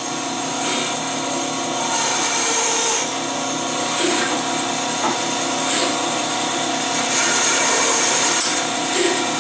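Bandsaw running steadily, its blade cutting through a small, very hard hickory blank that is pushed into it by hand to trim off the wings, with a few brief louder moments as the blade bites.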